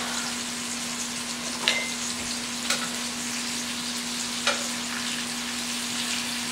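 Scallops frying in butter in a stainless steel skillet, a steady sizzle, with three sharp clicks of metal tongs against the pan as they are turned.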